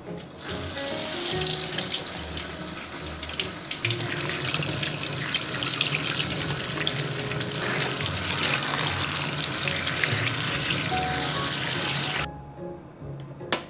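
Kitchen faucet running onto cherries in an enamel colander while a hand swirls the fruit under the stream. The water cuts off suddenly about a second and a half before the end, followed by a single sharp click.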